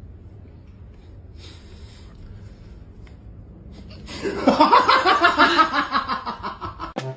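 A person bursting into laughter about four seconds in: a quick run of ha's, about five a second, falling in pitch, after a few seconds of faint room noise.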